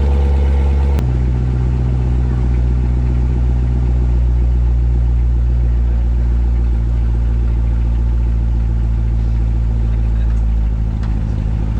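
Car engine idling steadily after a cold start, its idle note shifting abruptly about a second in.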